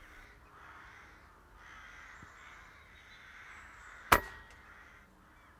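Crows cawing, then about four seconds in a single sharp crack of an air rifle shot.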